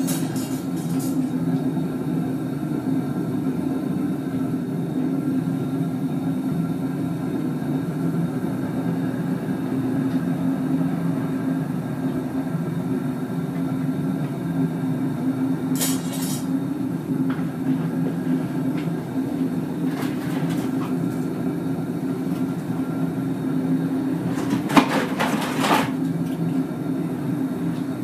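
Gas-fired backyard foundry furnace, made from an old gas cylinder, running with its burner blasting flame through the body and out the top: a steady low rush of burning gas. A few brief clicks or knocks sound over it, about halfway through and near the end.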